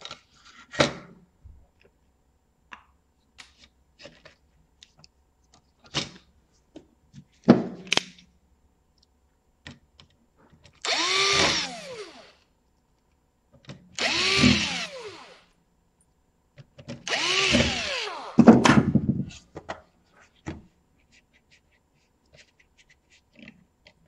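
Cordless drill-driver backing out a laptop's heatsink screws in three short runs of a second or so, the motor whine falling away at the end of each. Between the runs, a few sharp clicks and knocks from handling the board and tools.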